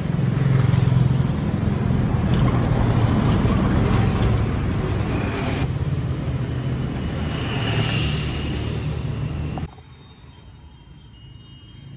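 Road traffic passing close by: engines rumbling and tyre noise from vehicles on the street. About ten seconds in it cuts off abruptly to a much quieter background.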